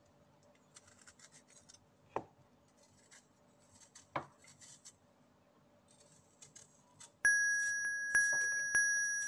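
Faint scraping of a knife blade peeling the skin off a ginger root, with two sharp taps about two and four seconds in. From about seven seconds in, background music starts with one bright bell-like note struck over and over, louder than the scraping.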